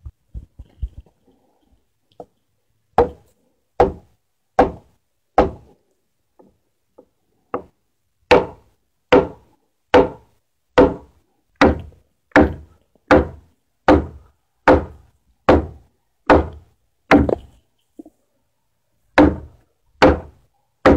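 Repeated heavy blows on a timber girt, driving it into its joint in a wall post. A few strikes come about three seconds in, then after a pause a steady run of strikes a little under a second apart, with two more near the end.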